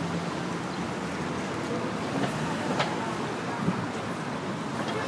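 Steady city street traffic noise with vehicle engines running, and one brief sharp click near the middle.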